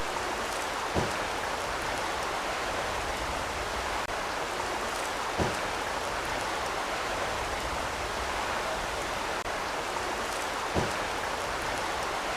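Valley stream water running with a steady rushing noise, with three short low thumps about five seconds apart.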